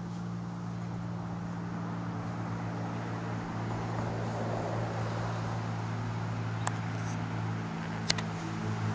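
Cessna 310R twin-engine piston airplane flying overhead: a steady low engine-and-propeller drone that slowly grows louder. Two short sharp clicks come near the end.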